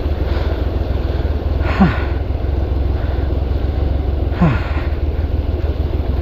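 Honda Hornet 2.0 motorcycle engine running steadily at low speed, heard from the rider's position. Two brief downward-sliding sounds stand out about two and four and a half seconds in.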